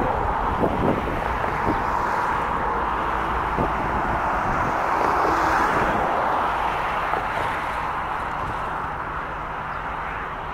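Steady outdoor rail-yard noise: the distant running of Canadian Pacific diesel locomotives shunting, mixed with wind on the microphone.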